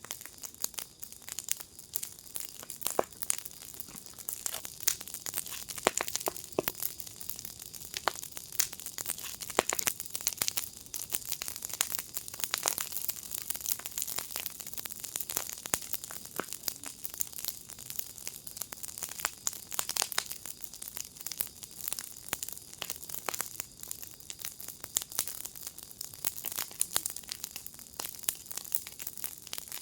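Wood fire burning in a firepit, crackling and popping irregularly over a steady hiss.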